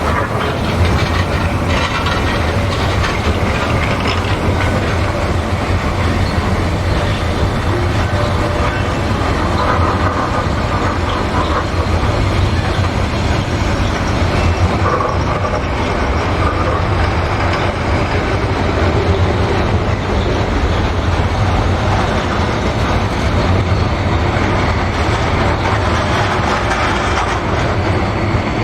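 Train running along the track: a steady rumble of wheels on rails with a low drone underneath and some clickety-clack.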